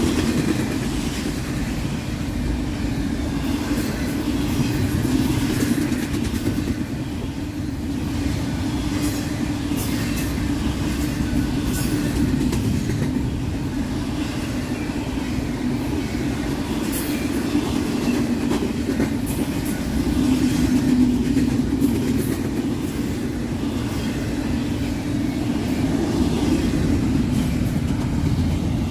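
Intermodal freight train rolling past, its cars' wheels running over the rails in a steady rumble with scattered sharp clicks and clacks.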